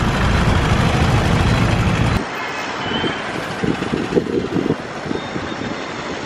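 Road traffic: a low engine rumble from vehicles close by, which cuts off abruptly about two seconds in. After that comes lighter traffic noise with wind gusting on the microphone.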